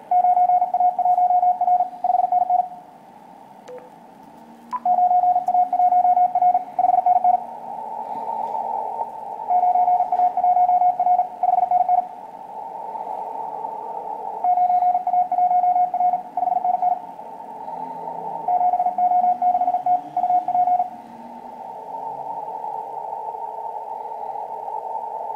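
Morse code (CW) received on an ICOM IC-7000 HF transceiver on the 15 m band: a single pitched tone keyed in quick dots and dashes, in five short groups a few seconds apart. Between the groups there is band hiss, narrowed by the receiver's CW filter.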